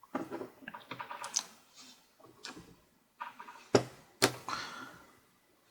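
Small flathead screwdriver prying at a laptop's plastic screen bezel and screw cover: irregular small clicks and scrapes of metal on plastic, with two sharper clicks about four seconds in.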